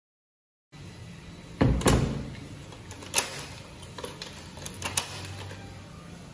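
A low steady hum starts suddenly under a second in. Over it come a few sharp knocks: a loud pair around two seconds in, then single ones about three and five seconds in.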